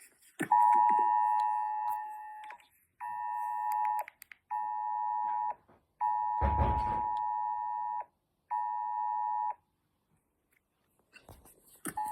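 UK Emergency Alerts attention signal played back: a harsh two-pitch tone sounding in five pulses with short gaps, long, short, short, long, short. A single thump falls about six and a half seconds in, during the fourth pulse.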